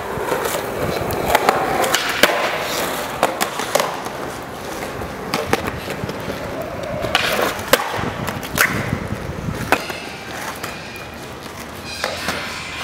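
Skateboard wheels rolling on rough concrete, broken by repeated sharp clacks as the board's tail pops and the deck lands flatground flip tricks.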